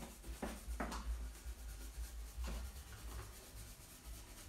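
Dry stencil brush rubbed in small circles over a paper stencil, a scratchy brushing with a few louder strokes in the first second and again around two and a half to three seconds in, over a low rumble.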